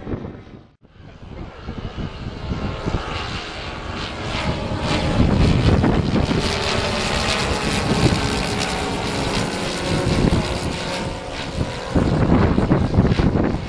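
Propeller aircraft piston engines droning, laid on as a substitute soundtrack rather than the model's own motors. The sound drops out briefly about a second in, builds back up over several seconds, then holds steady, growing louder again near the end.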